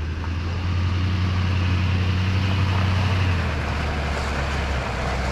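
Truck engine running steadily with a deep hum, its note dropping slightly about three and a half seconds in and again near the end.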